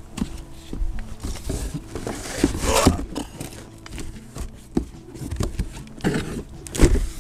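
Cardboard boxes scraping and rustling against each other as a boxed strut is pulled out of a cardboard shipping carton, with a few knocks. The loudest scrapes come about three seconds in and again near the end.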